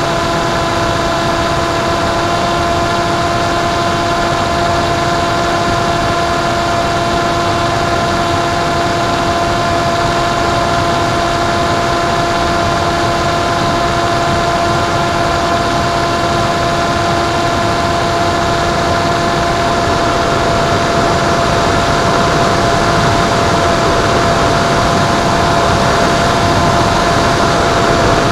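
Electric motor and propeller of a Penguin FPV model plane in flight, heard through its onboard camera: a steady whine of several held tones over a rush of wind. The lowest tone fades about twenty seconds in while the wind rush grows slightly louder.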